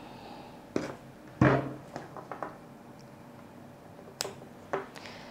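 Ethernet cables and plastic connectors handled on a tabletop: a few separate light knocks and clicks. The loudest is a dull knock about one and a half seconds in, and a sharp click comes about four seconds in as a network plug is fitted to the camera's cable connector.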